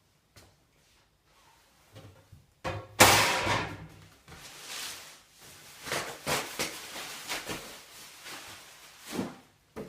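Packaging being handled during unboxing: a few knocks, then a loud scraping rustle about three seconds in, followed by crackling and rustling of wrapping and cardboard, and a low thump near the end.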